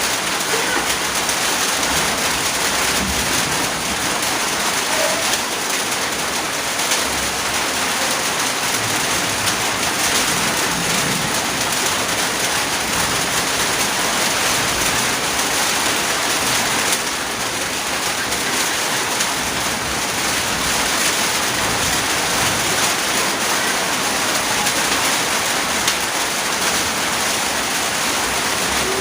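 Steady heavy rain falling, an even dense hiss of raindrops with no pauses or changes.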